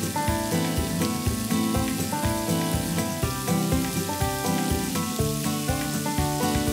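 Pretzel-crusted chicken pieces sizzling as they pan-fry in shallow grapeseed oil, under background music with a steady beat.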